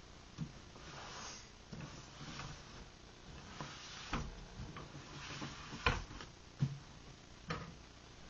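A large cardboard shipping box being handled and shifted by hand: a series of knocks and thuds, the loudest about six seconds in, with brushing and scraping of cardboard between them.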